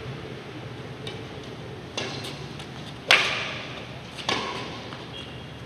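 Badminton rackets hitting a shuttlecock back and forth in a rally. A soft hit comes about two seconds in, the loudest smack a little after three seconds and another just after four, each with a short echo.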